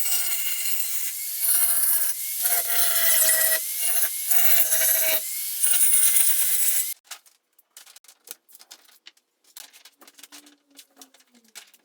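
A power tool grinding or abrading in several bursts. Its motor tone sags slightly under load, and it stops about seven seconds in, followed by faint clicks and taps.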